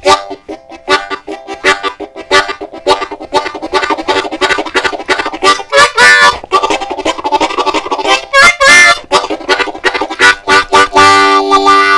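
Diatonic harmonica in C playing a steam-train imitation: fast, rhythmic chugging from quick alternating blow and draw chords, with wailing whistle glides about six and nine seconds in, and a held chord near the end.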